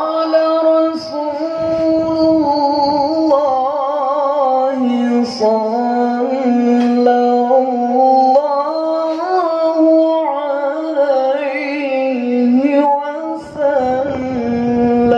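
A man singing a sholawat, an Islamic devotional chant, solo and unaccompanied into a microphone. He draws out long melismatic notes with a wavering vibrato, stepping down in pitch a few seconds in and again near the end.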